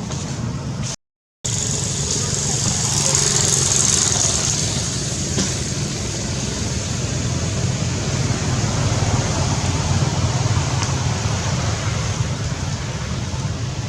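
Steady road traffic noise, a low rumble with hiss. It drops out completely for a moment about a second in, then resumes.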